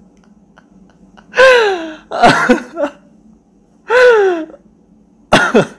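A man laughing helplessly in four high-pitched bursts, each sliding down in pitch, with short quiet breaths between.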